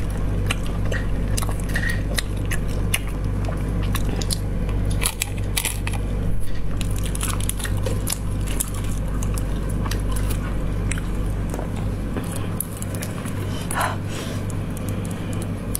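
Close-miked eating of spiced snails in their shells: wet biting and chewing, with sharp clicks and smacks scattered throughout, over a steady low hum.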